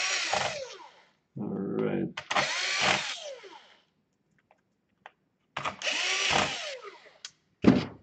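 Cordless drill/driver running in three short bursts of about a second each, driving small screws into a laptop's plastic underside. Its motor whine falls in pitch as each run stops.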